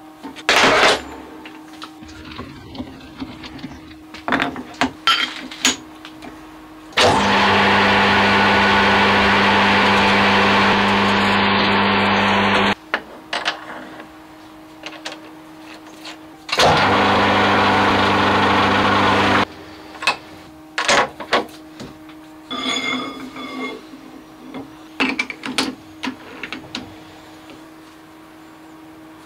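Metal-working lathe being set up: scattered metal clinks and knocks of tooling and the workpiece being handled, over a low steady hum. Twice the lathe runs steadily, first for about six seconds and then for about three, each run starting and stopping abruptly.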